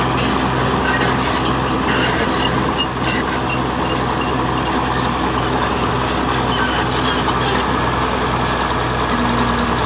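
Bulldozer's diesel engine running steadily under work, with short high squeaks and clinks from the machine scattered over it.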